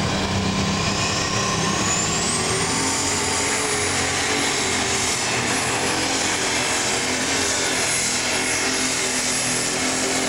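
Minneapolis-Moline unlimited super stock pulling tractor's turbocharged diesel engine running flat out under load as it drags a weight-transfer sled. A high turbo whine rises over the first few seconds and then holds steady over the engine noise.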